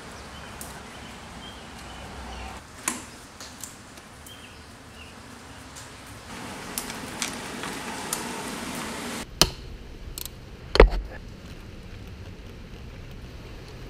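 Scattered small metal clicks and knocks of hand tools and parts while the throttle body is unbolted from the intake manifold of a Honda J-series 3.0 V6. Two louder knocks come about two-thirds of the way through, the second with a dull thud.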